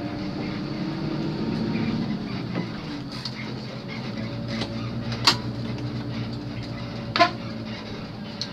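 Intercity bus running on the road, a steady engine and road noise heard from inside the cabin. Two sharp clicks or rattles sound about five seconds in and again about two seconds later.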